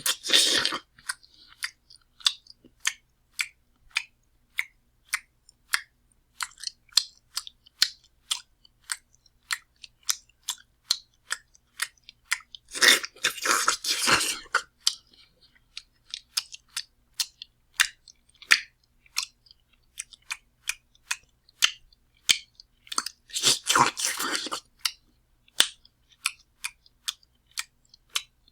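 Sloppy, loud open-mouth chewing: wet smacking clicks about two a second, broken twice by longer, noisier bursts of a second or two, once about halfway and once near the end.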